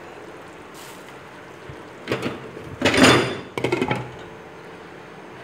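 Glass pot lid with a steel knob being set onto a metal cooking pot: a couple of knocks about two seconds in, the loudest clank about a second later, then a quick rattle as the lid settles.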